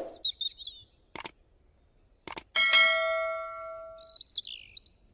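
Subscribe-button animation sound effects: a low thump at the start, a click about a second in, another click just after two seconds, then a bright notification-bell ding that rings out for about a second and a half. Birds chirp before and after the ding.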